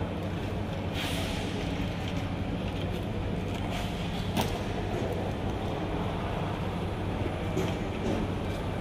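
Steady low hum and rumble of a large airport terminal hall, with a brief rush of noise about a second in and a sharp click about four and a half seconds in.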